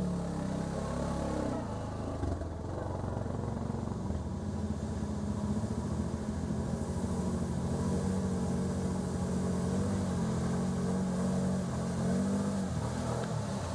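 Engine of an off-road utility vehicle running steadily at low speed, with a slight drop in pitch about two seconds in.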